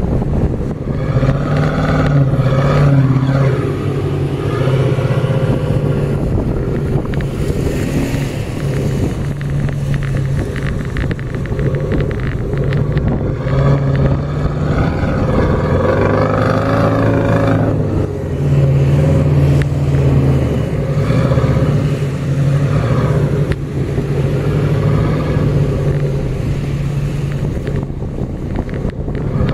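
Off-road SUV engine running under load while driving over sand dunes, its pitch rising and falling with the throttle, most noticeably about halfway through.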